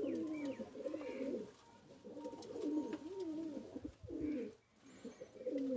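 Several domestic pigeons cooing, their low wavering calls overlapping.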